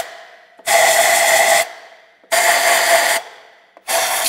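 Compressed-air blowgun hissing in short blasts of about a second, three times with brief pauses, blowing dirt out of the spark plug wells before the plugs are removed.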